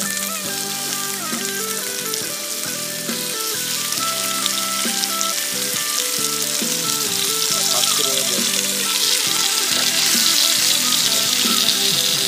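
Food frying in a pan, a steady sizzle that grows louder in the second half.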